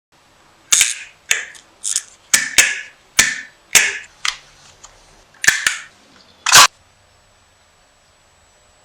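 A series of about ten sharp knocks or clicks, irregularly spaced, each with a short ring, the last one the loudest.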